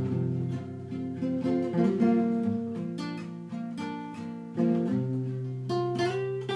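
Acoustic guitar played solo, plucked single notes and chords over ringing bass notes, with no singing.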